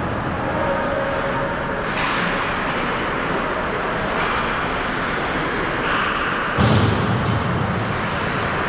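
Ice hockey game sound in an indoor rink: a steady wash of skates on ice and arena noise, with stick and puck knocks. A sharp knock about two seconds in and a heavier thud about two-thirds of the way through, like a puck or body hitting the boards.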